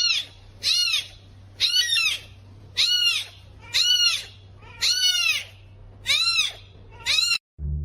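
An animal giving about eight short, high-pitched calls in a row, roughly one a second, each rising and then falling in pitch. It cuts off abruptly near the end.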